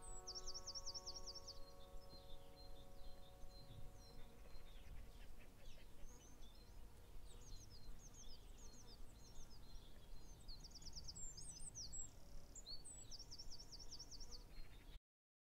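Faint birdsong from a field recording: high chirps and quick runs of repeated notes over a low outdoor rumble. The last piano notes die away in the first second or two, and the birdsong cuts off suddenly near the end.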